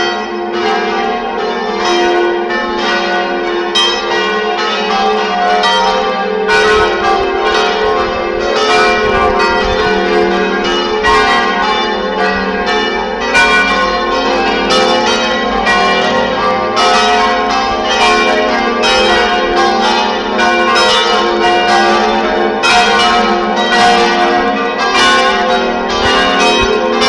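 Church bells ringing the noon peal: several bells struck in quick succession, their tones ringing on and overlapping in a continuous peal.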